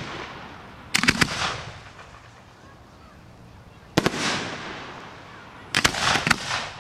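Aerial fireworks bursting overhead: a quick cluster of sharp bangs about a second in, a single bang about four seconds in, and several more near the end. Each trails off over about half a second.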